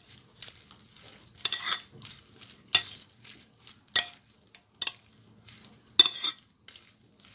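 A utensil stirring and tossing shredded white radish salad with peanuts in a glass bowl: a wet rustle, with a sharp clink of the utensil against the glass about five times, roughly once a second.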